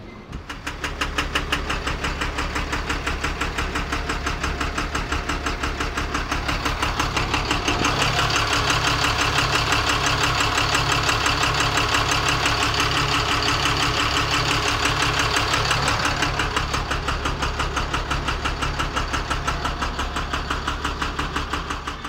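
Tata Signa 4923.S truck's diesel engine running at idle with a rapid, even knocking: the abnormal engine noise being tracked down. The knocking grows louder in the middle and eases again toward the end.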